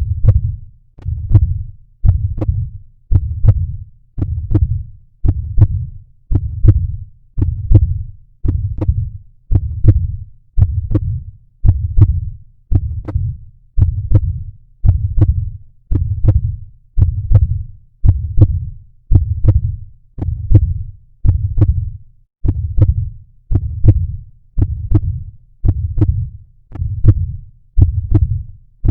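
Heartbeat recording beating at a steady resting pace of about one beat a second, each beat a low double lub-dub.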